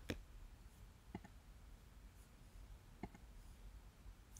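Near silence broken by a few faint, short clicks from a computer being operated. There is one click at the start, a quick pair just after a second in, and another about three seconds in.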